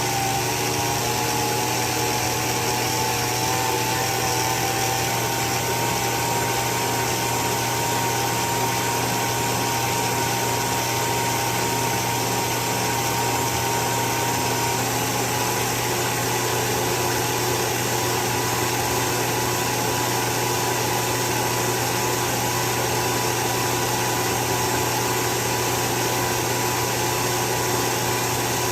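8mm film projector running steadily: a motor hum and whine with the fast clicking of the film-advance mechanism. The whine rises slightly in pitch over the first few seconds, then holds steady.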